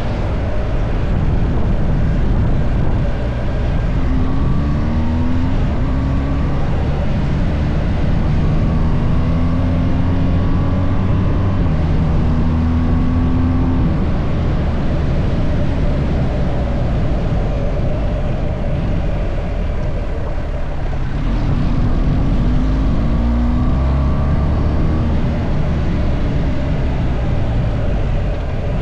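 Car engine and road rumble while driving, the engine note rising several times as the car accelerates through the gears.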